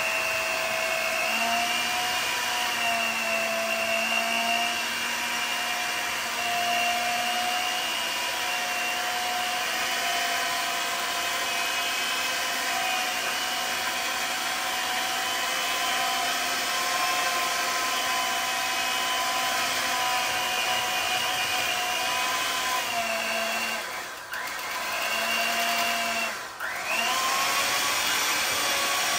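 Electric hand mixer running steadily, its beaters working through a thick cottage cheese mixture in a bowl. Near the end its motor dips twice, briefly slowing and then speeding back up.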